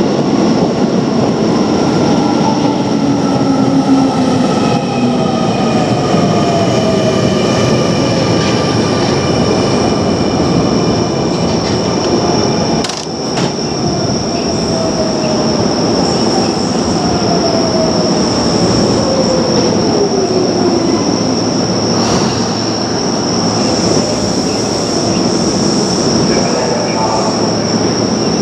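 Keio Line electric train running, with steady wheel-on-rail noise and a steady high-pitched whine. The traction motor whine falls in pitch twice, once near the start and again in the second half, as the train slows.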